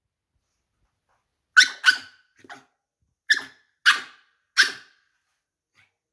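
A pug barking in a series of about five short, high, sharp barks, starting about a second and a half in, with a fainter one among them: demand barking to be let outside.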